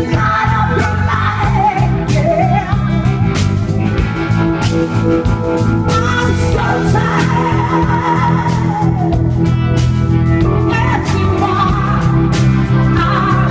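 Live rock band playing loud, with a woman singing lead over electric guitar and a steady beat.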